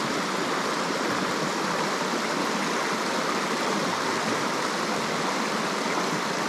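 Mountain stream rushing steadily over rocks in a shallow riffle, an even, unbroken water noise.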